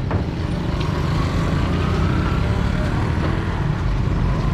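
Steady low engine rumble, with a faint rising whine from about one to two and a half seconds in.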